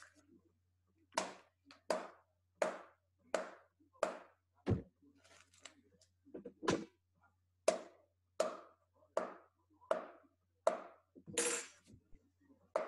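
A spoon tapping a notebook about fourteen times, in a steady rhythm of roughly one short, dull tap every 0.7 seconds.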